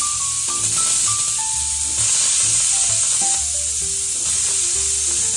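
Pressure cooker venting steam: a steady hiss as the pressure is let out by hand before the lid is opened.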